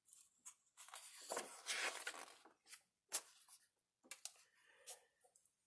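A page of a glossy hardcover picture book being turned by hand: a faint paper rustle and slide, then a few light clicks as the page is laid flat.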